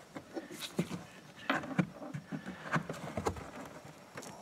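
A screwdriver tip working the edge of trunk carpet behind a plastic trim panel: scattered light clicks, taps and scrapes of plastic, about eight in all.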